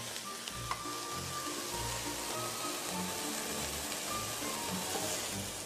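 Shredded-beef stir-fry sizzling in a hot wok, a steady hiss, with soft background music over it.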